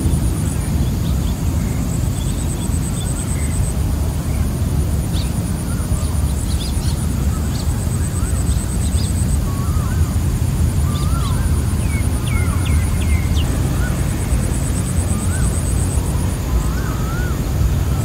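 Insects trilling in high, fast-pulsing stretches of a few seconds each, with birds giving short whistled calls here and there and a quick run of sharp calls about two-thirds of the way through. Under it all runs a steady low rumble.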